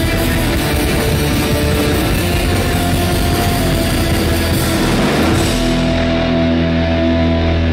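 Live rock band with distorted electric guitars, bass and drums playing loudly. About two-thirds of the way through, the dense crashing drums and cymbals stop, leaving held guitar and bass notes ringing on.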